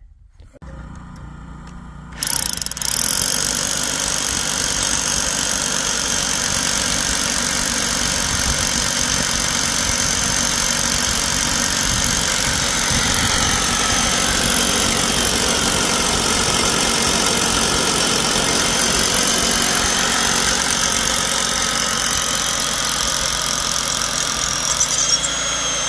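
A motor running steadily and loudly, coming up to full level about two seconds in.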